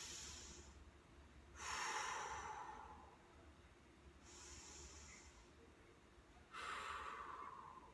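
A woman breathing slowly and deeply in a costodiaphragmatic (belly) breathing exercise. There are four unhurried breaths in and out, about a second each, with the second and fourth louder than the others.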